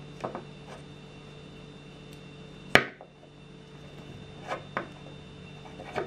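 Sanrenmu GB-704 folding knife with G10 scales being worked in the hands: a few light clicks, then one sharp metallic snap of the blade action about three seconds in, and two more light clicks later on. A steady low hum sits underneath.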